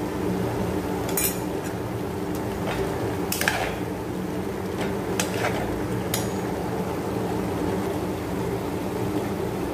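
A spatula stirring chicken gravy in a pan, knocking against the pan about five times in the first six seconds, over a steady low hum.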